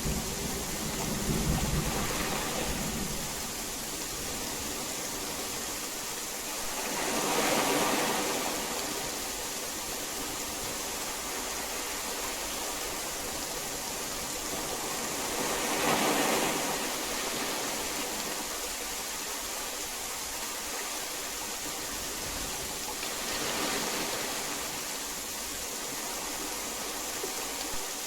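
Heavy rain falling as a steady hiss, with the low rumble of thunder dying away in the first few seconds. The hiss swells briefly three times, about eight seconds apart.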